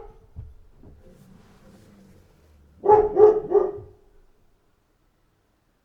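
German shepherd barking: the end of one bark at the start, then three quick barks in a row about three seconds in.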